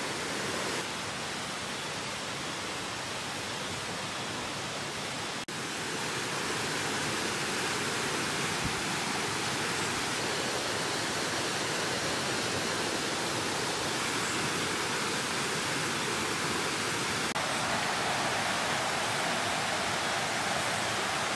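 Mountain stream rushing over boulders in white-water rapids, a steady loud rush of water running high, which looks to have risen after heavy rain. The rush breaks off for an instant about five seconds in.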